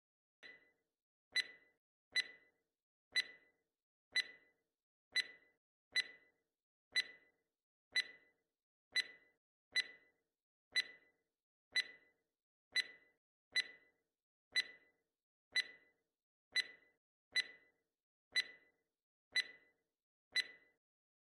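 Quiz countdown timer ticking like a clock, one sharp tick about every second, while the time to answer runs down.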